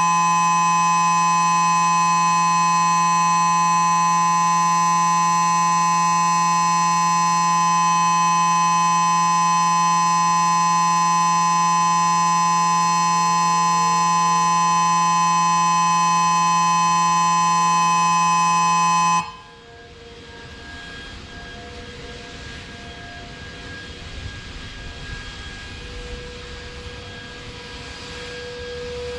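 Ion Pathfinder siren sounding a steady, unwavering alert tone that cuts off suddenly about 19 seconds in. Behind it and then on its own, a distant outdoor warning siren's tone rises slowly and grows louder near the end.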